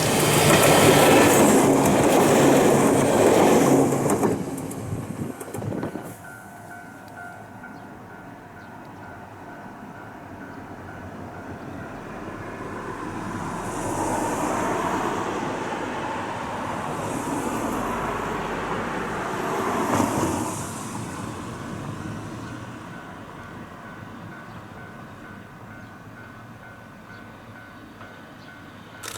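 Ohmi Railway electric train passing close, its wheels clattering over the rail joints, loud for the first few seconds and then dropping away. A faint repeating high tone follows, and a second, slower swell of rail noise rises and falls in the middle.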